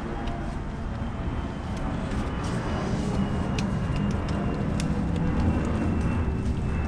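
A steady low mechanical rumble that grows slightly louder, with a few light clicks as a coolant hose is worked back onto a new coolant bypass valve. A faint high whine comes in about midway.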